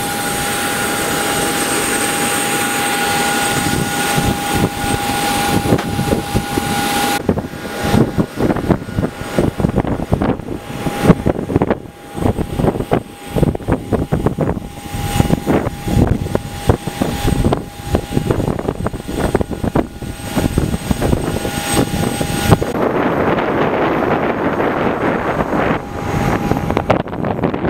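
Steady whine and rush of a parked Boeing 737-800 airliner on the apron, with a constant tone held throughout. From about seven seconds in it is broken by irregular rumbling knocks and uneven loudness, and after about twenty-three seconds it settles to an even, duller rushing sound.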